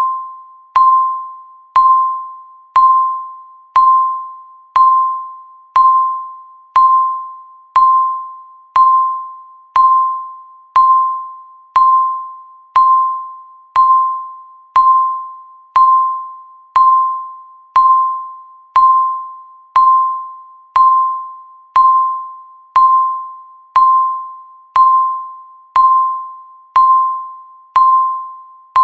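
Countdown timer beeping once a second: a single high electronic tone each time, struck sharply and fading quickly before the next.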